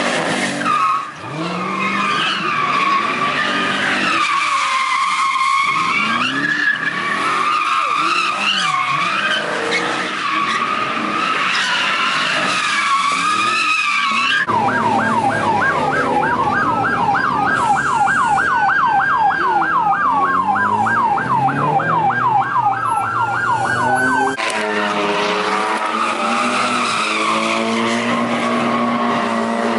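Car tyres squealing in long, wavering screeches. About halfway in, a siren yelping rapidly, about three to four sweeps a second, takes over for roughly ten seconds, and then the squealing returns.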